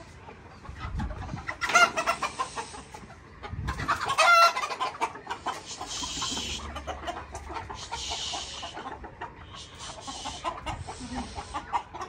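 Chickens squawking and clucking as they are chased toward their coops, with two loud squawks about two and four seconds in, followed by scuffling bursts of noise.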